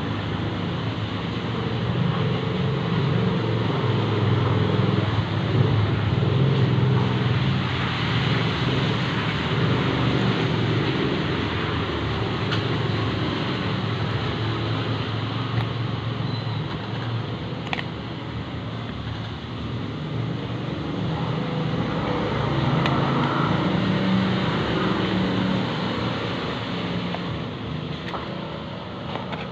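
Steady low engine rumble that swells and fades a couple of times, with a few faint clicks.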